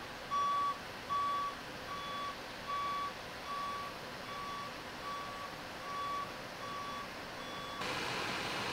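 A vehicle's reversing alarm beeping steadily, one tone repeated a little faster than once a second. The beeping stops near the end, and a steady hiss takes over.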